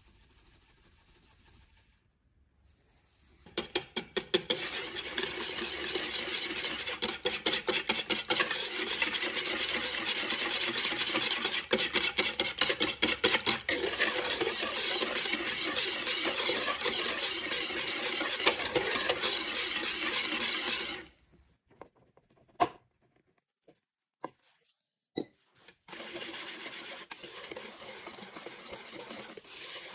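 Wire whisk beating eggs and sugar in a plastic mixing bowl: a continuous scraping rub with dense fine clicking of the wires against the bowl, starting about three seconds in. It breaks off for a few seconds with a few single taps, then picks up again more quietly as flour is whisked into the eggs.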